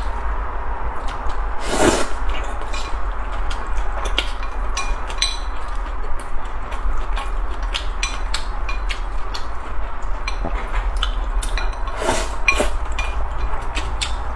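Close-miked eating of chili-oil cold noodles: wooden chopsticks clicking against a ceramic bowl among wet chewing and mouth sounds, with two louder eating sounds about two seconds in and near twelve seconds, over a steady low hum.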